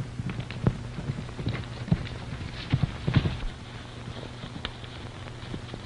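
Horses' hooves thudding on the ground in an irregular run of hoofbeats, loudest in the first three seconds and thinning out about three and a half seconds in, over a steady low hum.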